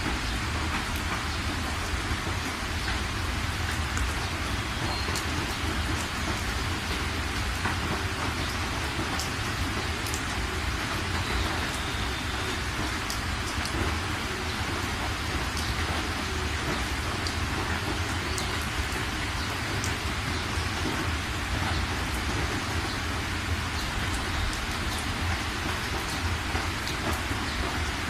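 Heavy rain hitting the windshield and roof of a moving car, heard from inside the car, with scattered sharp drop ticks over a steady low rumble.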